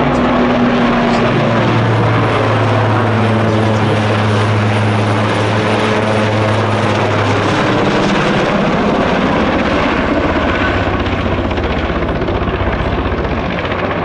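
Eurocopter AS532UL Cougar (Super Puma) military transport helicopter flying close by: a loud steady drone of its rotors and turboshaft engines, with a low steady tone that drops slightly in pitch about two seconds in and fades out around seven to eight seconds in.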